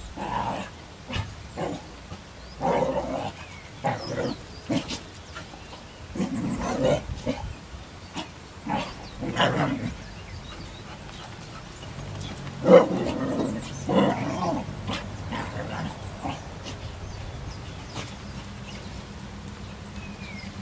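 Two dogs scuffling, barking and yelping in short irregular bursts, loudest about 13 seconds in and dying away over the last few seconds.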